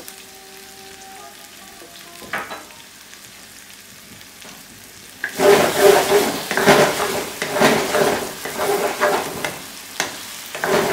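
Gravy sizzling quietly in a nonstick wok as cream goes in. About five seconds in, a wooden spatula starts stirring and scraping through the thick kadai paneer gravy, loud repeated strokes about two a second over the sizzle.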